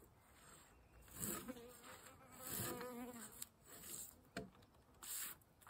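An insect buzzing, wavering in pitch, from about a second in until past the three-second mark, among a few short scraping strokes.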